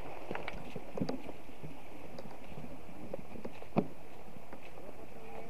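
Irregular footsteps knocking over stones and through undergrowth along a stream bank, over the steady rush of a shallow rocky stream. One sharper knock stands out a little under four seconds in.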